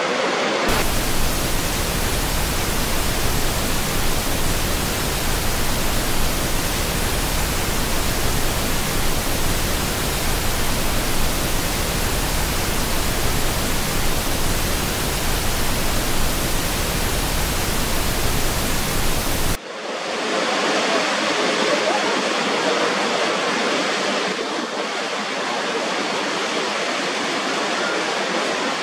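Steady roar of water pouring over Niagara's Horseshoe Falls, heard from the brink. About two-thirds of the way through it cuts abruptly to another recording of the falls with less deep rumble.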